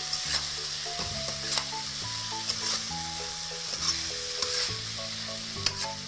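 Spice paste and ground spices sizzling in hot oil in a kadai while a spatula stirs and scrapes them, with short scraping clicks every second or so: the masala being fried down (kosha). A simple background melody plays underneath.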